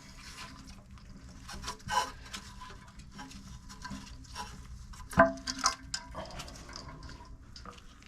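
Clicks, knocks and rubbing of plastic and porcelain parts being handled inside a toilet tank, with one sharp knock about five seconds in.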